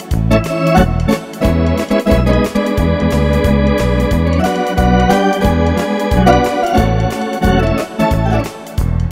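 Wersi electronic home organ played in a step-fox (foxtrot) style: held chords and melody over a bass note pulsing about twice a second, with sharp rhythm-section ticks on the beat.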